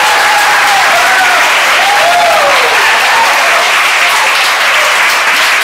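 Crowd of dancers applauding and cheering, with a few voices whooping in the first couple of seconds.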